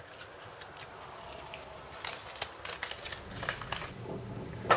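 Small handling noises: light crinkles and clicks as a stick of metal putty is wrapped back up in its packaging, with a sharp knock near the end.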